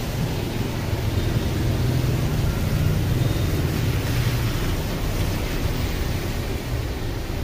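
City street traffic in the rain: a steady hiss under a low motor-vehicle hum that swells and fades about two to five seconds in as a vehicle passes.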